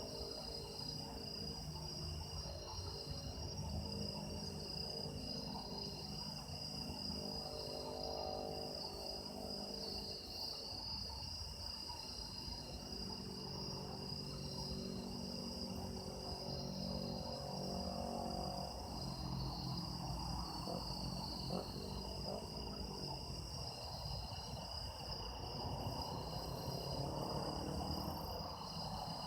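Autumn crickets trilling steadily, a high pulsing chirr with a second, lower steady tone beneath it.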